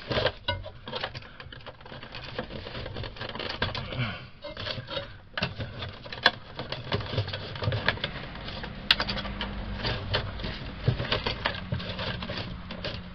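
Hands working wires and the sheet-metal housing of an RV power converter in its distribution panel: irregular small clicks, taps and scrapes of wire ends and metal, with a faint low hum coming in about eight seconds in.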